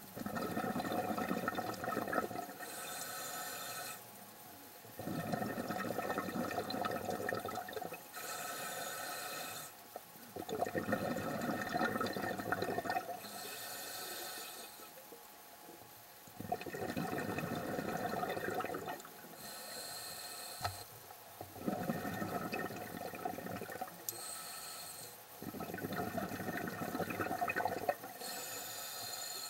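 Scuba diver breathing through a regulator underwater. Six bursts of exhaled bubbles come about every five seconds, each lasting two to three seconds, and a fainter, higher hiss of the inhale falls between them.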